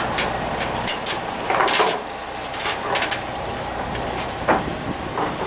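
A steady engine-like rumble, with scattered short clanks and knocks; the loudest knock comes about four and a half seconds in.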